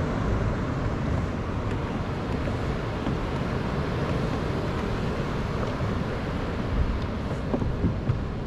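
Steady wind rumble on the microphone with water around it, and a few light knocks near the end.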